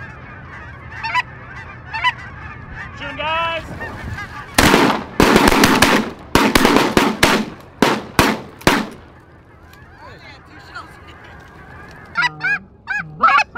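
A flock of snow geese calling overhead, scattered honks at first, then many overlapping calls near the end. In the middle a run of loud, noisy bursts lasting about four seconds drowns them out.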